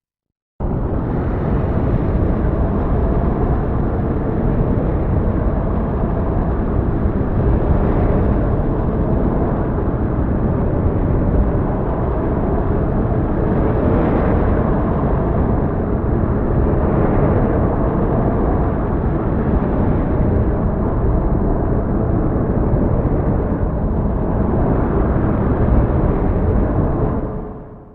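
Heavy storm ambience: a steady, deep rumbling rush of storm noise that swells a little a few times. It starts abruptly about half a second in and fades out near the end.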